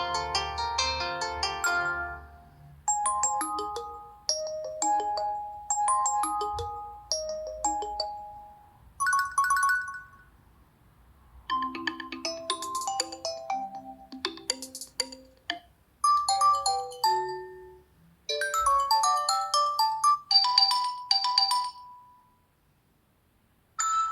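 Stock ringtones of a Nokia 3 (TA-1032) smartphone playing one after another: a series of short electronic melodies of bright, bell-like notes, each a second or a few seconds long, separated by short gaps. A longer pause comes near the end before the next tone starts.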